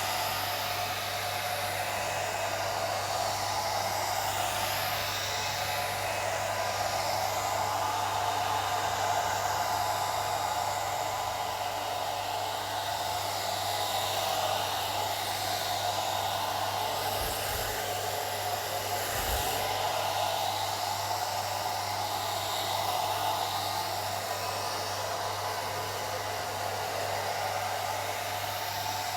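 Old hair dryer running continuously, a steady rush of blown air with a constant low hum underneath.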